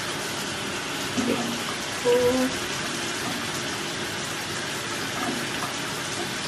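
Shower running: a steady hiss of falling water spray. A brief hummed voice sound cuts in about two seconds in.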